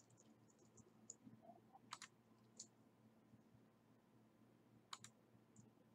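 Near silence with a few faint computer mouse clicks, the two clearest about two seconds and five seconds in.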